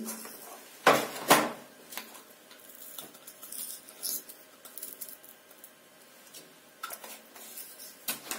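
Kitchen handling sounds around an aluminium pressure cooker: two sharp knocks about a second in, then scattered light clinks and taps of utensils and spice containers.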